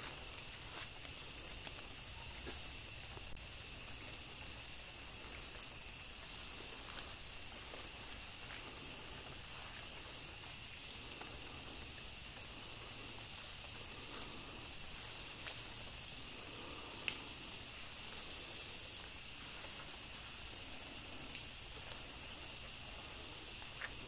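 Steady chorus of night insects, several constant high-pitched trills layered together, with a few faint ticks and rustles from movement through the undergrowth.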